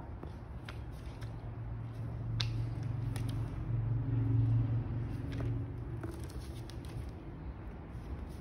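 Quiet room tone: a low hum that swells for a few seconds in the middle and then fades, with a few faint clicks scattered through it.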